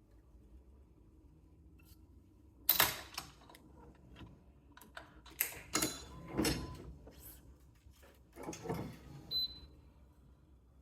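Irregular clicks and clatter of badminton racquet stringing work, from tools and clamps being handled against the stringing machine and frame, with a short high ping near the end.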